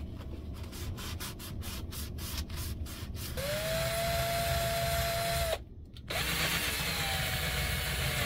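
A cloth rubbing briskly over a copper cylinder, about four strokes a second. About three seconds in, a cordless drill with a spinning brush wheel starts up against the copper: its motor whine rises and then holds steady over a rasping hiss. It stops briefly past the middle, then runs again.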